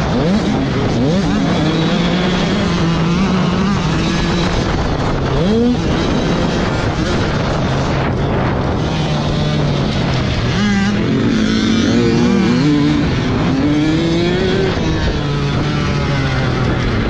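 Dirt bike engine heard up close from the bike itself while riding, revving up and down through the throttle and gears, with its pitch climbing about five seconds in and several times in the second half.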